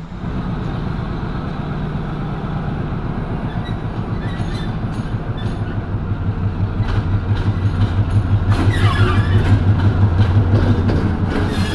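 Sri Lanka Railways Class M6 diesel locomotive's engine running, a steady low throb that grows louder, with sharper clicks joining over the last few seconds.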